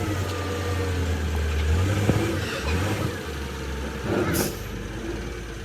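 An engine running with a low steady note that shifts in pitch around the middle. There is a single knock about two seconds in and a short burst of hiss a little after four seconds.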